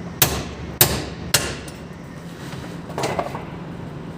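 Three sharp hammer strikes on metal, about half a second apart, as a worn roller is knocked out of a transmission part, followed a couple of seconds later by a lighter metallic clatter.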